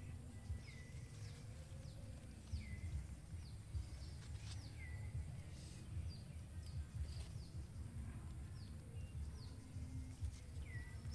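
Short, high chirps from a bird, each falling in pitch and repeated every couple of seconds, over a steady low rumble.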